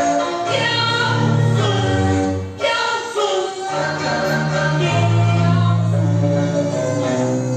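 Music with singing: a vocal line held on long, wavering notes over instrumental accompaniment, the accompaniment of a Quanzhou marionette performance.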